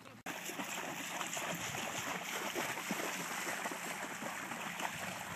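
Several dogs wading and splashing through shallow pond water, a steady wash of splashing that starts abruptly a moment in.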